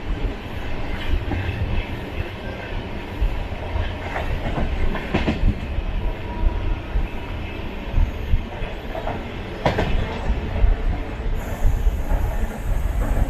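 Running noise of a moving LHB passenger coach, heard from on board: a steady rumble of wheels on track with irregular clatter, and a few sharp knocks, the clearest about five and ten seconds in.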